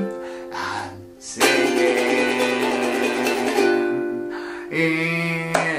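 Ukulele being strummed, a chord struck about a second and a half in and left ringing, moving from F to G7, with the player's voice coming back in briefly near the end.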